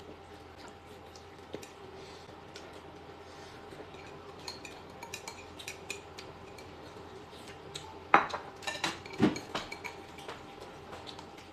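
Chopsticks and bowls clinking at a meal, with scattered small clicks and then a brief cluster of louder knocks about eight to nine seconds in.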